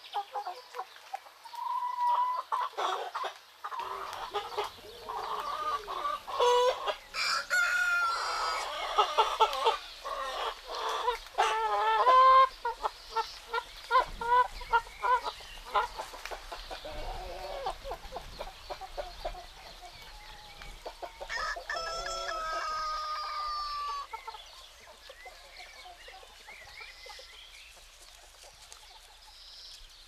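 Chickens: hens clucking and roosters crowing, dense and overlapping through the first half and sparser later, with one long drawn-out crow about three quarters of the way through.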